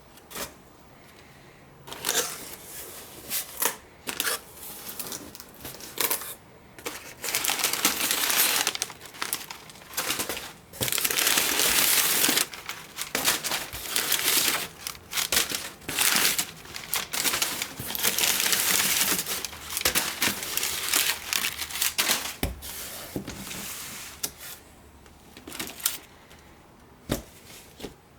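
Pokémon trading-card packaging being unwrapped by hand: plastic crinkling and tearing in uneven bursts, with several longer stretches of steady crinkling. Near the end it settles into a few light taps and clicks.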